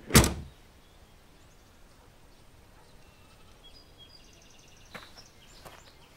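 A single loud, heavy thud at the very start, fading within half a second, then faint outdoor background with a few faint high chirping calls and footsteps on gravel near the end.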